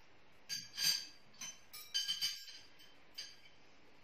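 Porcelain dishes and cutlery clinking as a table is set: a string of light clinks, about seven in the first three and a half seconds, each ringing briefly.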